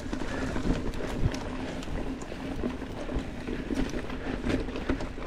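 Mountain bike rolling fast over a dirt trail: steady tyre and ground rumble with frequent small rattles and knocks from the bike.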